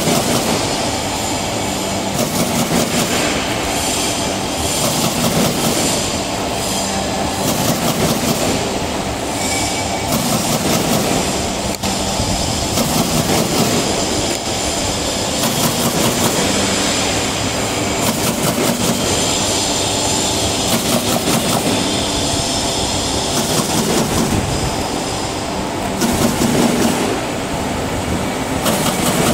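Automatic corrugated cardboard partition assembly machine running: a loud, dense mechanical clatter that swells in a cycle repeating about every two seconds.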